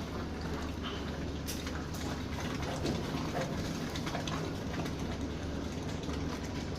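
Lightweight concrete being pumped and poured onto a composite floor slab: a steady low machine hum under a continuous wet, spattering hiss, with a few faint knocks.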